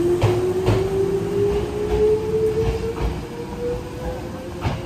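Hankyu electric train accelerating: its traction-motor whine climbs steadily in pitch, over a low rumble. Wheels clack over rail joints twice near the start and once near the end.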